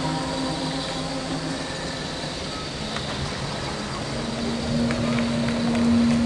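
Stage-show soundtrack over an arena sound system: a low rumbling noise, then a single low note held from about four seconds in.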